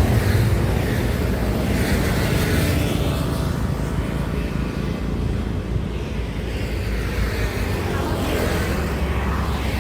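Highway traffic passing: a steady low rumble of engines and tyres, with vehicles swelling past about two seconds in and again near the end.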